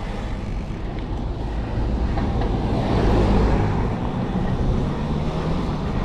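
Wind rushing over the microphone and road rumble from a road bike being ridden, a steady low rumble that swells a little about halfway through.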